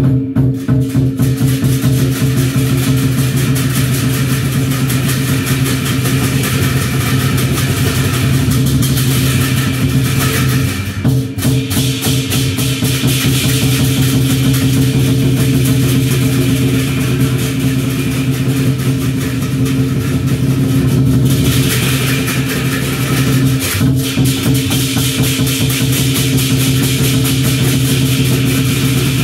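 Lion dance percussion: a drum beaten in a fast, driving rhythm with clashing cymbals over it, keeping the beat for the lions' dance. The clashing grows brighter and louder about twenty-one seconds in.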